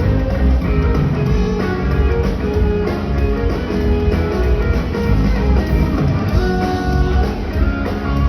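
Live band playing: electric guitar over a drum kit, loud and continuous.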